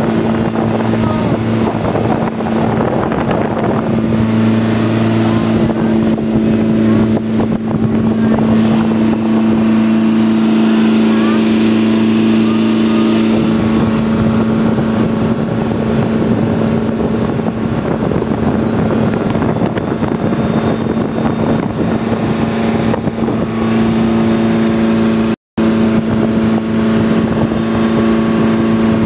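Motorized outrigger boat's engine running steadily at cruising speed, one unchanging pitch, with water rushing along the hull and outrigger. The sound drops out for an instant about 25 seconds in.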